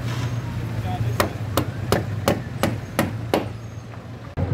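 Hammer blows: a run of seven sharp strikes at about three a second, then a heavier knock near the end, over a steady low hum.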